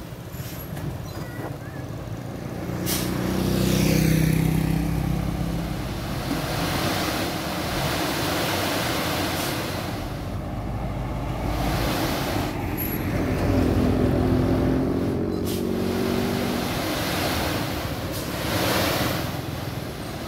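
Hino Profia F20C dump truck's V8 diesel engine running under load as the raised tipper bed dumps aggregate, the engine note rising and falling twice. A couple of short sharp hisses cut in over the engine.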